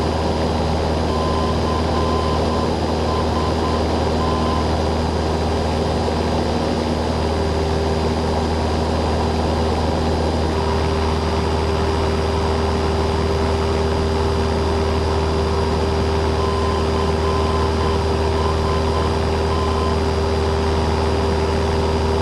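Steady drone of a Cessna 172N's Lycoming four-cylinder engine and propeller in flight, heard from inside the cabin. Twice a faint series of short beeps sounds over it.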